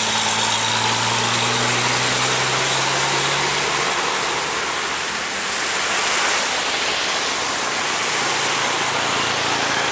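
Heavy truck's diesel engine running as it passes close, over a steady hiss of tyres on a wet road; the engine note fades out about four seconds in, leaving passing traffic and tyre hiss.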